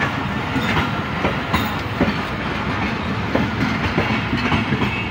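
Passenger train coaches rolling past close by: a steady rumble of wheels on track with repeated clickety-clack as the wheels cross rail joints.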